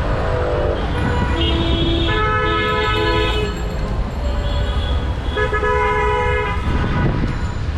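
Vehicle horns honking in long blasts at several different pitches: one at the start, more between about one and a half and three and a half seconds in, and another past the middle, over a steady rumble of road traffic.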